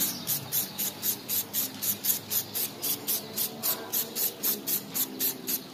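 Aerosol spray-paint can hissing as grey epoxy primer is sprayed onto a motorcycle wheel rim. Behind it is a steady, fast, high rhythmic pulsing of about four beats a second.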